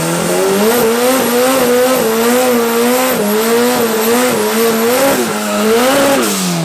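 Ariel Atom doing a burnout: the engine is held at high revs, its pitch wavering, with the rear tyres spinning and squealing, and the revs drop off at the very end.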